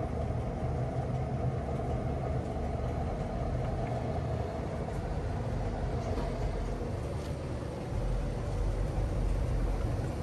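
Gas pump dispensing gasoline into a car: a steady hum and rush of fuel flow. A low rumble swells a little about eight seconds in.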